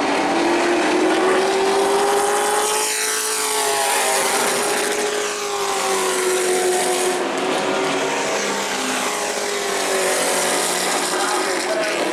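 Racing-truck engine running at speed around an oval, its pitch slowly rising and falling through the laps. There is a sweeping pitch change about three seconds in, as a vehicle passes.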